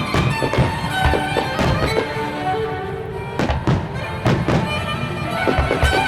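Violin-led music with fireworks bangs going off over it, several sharp reports scattered through, a close pair of them a little past the middle.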